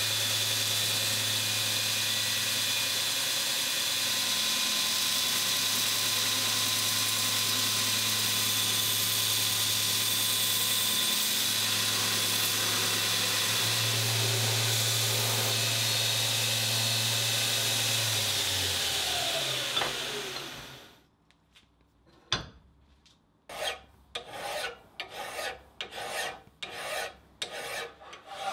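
Belt grinder grinding a piece of angle-iron steel, a steady hiss over the motor hum, then switched off about twenty seconds in and winding down. After a short pause, a hand file rasps on the steel clamped in a vise, about two strokes a second.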